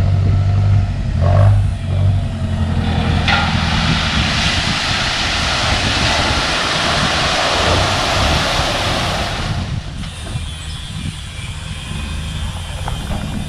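A large vehicle's engine running steadily, with a loud hiss for about six seconds in the middle that stops suddenly.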